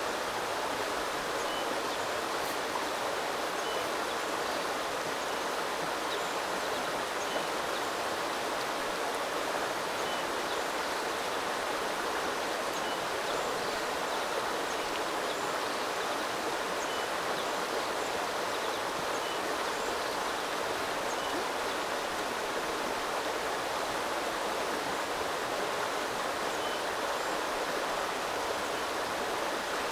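Small river flowing: a steady, even rush of water over stones. Faint short high notes recur every couple of seconds above it.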